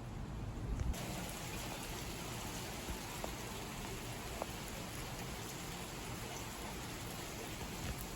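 Heavy rain falling in a steady hiss with scattered drop ticks. It comes in abruptly about a second in, after a low rumble.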